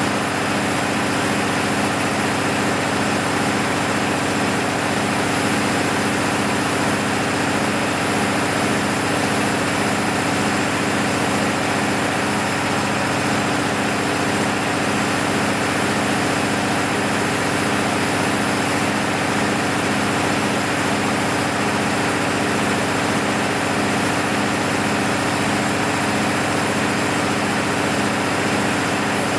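Six-cylinder diesel engine of an MEP-006A 60 kW military generator set running at steady speed during a load test after a full rebuild (new sleeves, pistons and bearings); the note holds even, with no change throughout.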